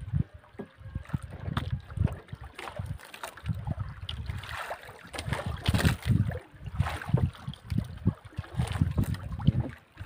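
Water lapping and slapping irregularly against the hull of a wooden outrigger boat, with short knocks and splashes, and gusts of wind buffeting the microphone.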